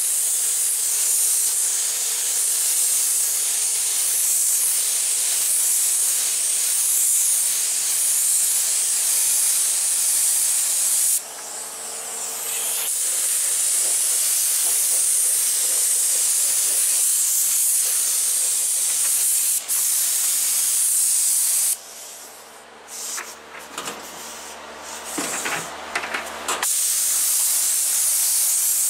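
Gravity-feed spray gun hissing steadily with compressed air as it sprays high-build primer. The hiss cuts out briefly about eleven seconds in, and again for about five seconds a little past the twenty-second mark, before it resumes.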